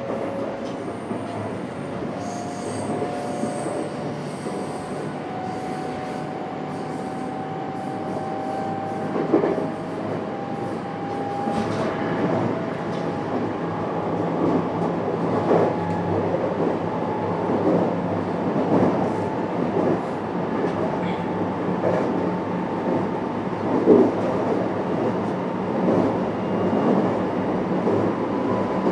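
Running sound inside the motor car of a JR West 321 series electric train. The traction motor whine rises steadily in pitch as the train gathers speed. In the second half the wheels knock over rail joints about once a second.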